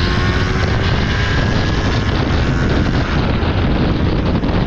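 Wind rushing over the microphone on a moving motorcycle, a steady loud rumble, with the bike's engine running underneath.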